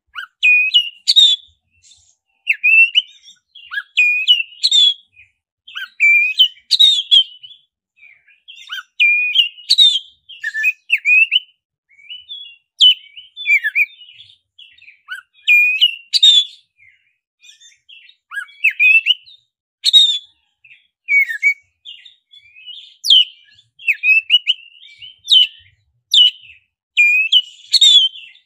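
Black-breasted oriental magpie-robin (kacer dada hitam) singing: a run of loud whistled phrases mixed with quick rolling notes and sharp high notes, a new phrase every second or two.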